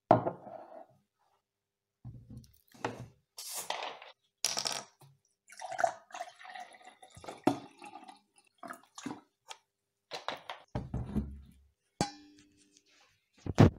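A glass set down on a countertop with a knock, a plastic bottle of Pepsi unscrewed with short hisses of escaping gas, then cola poured into the glass, splashing and fizzing. Another knock near the end.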